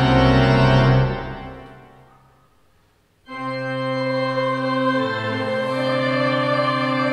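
Church organ holding a full chord, then released and ringing away in the church's reverberation to near silence over about two seconds; a little after three seconds a new sustained chord starts abruptly and holds.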